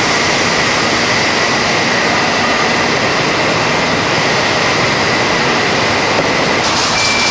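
Loud, steady fruit-processing machinery noise with a thin high whine running through it. Near the end the whine stops and a brighter hiss takes over.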